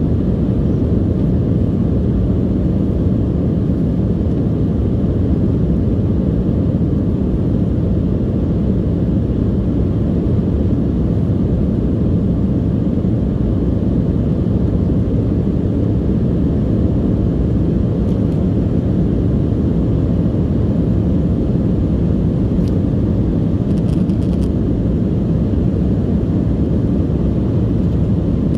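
Steady jet engine and airflow noise heard inside an airliner cabin during the climb after takeoff: a low, even rumble.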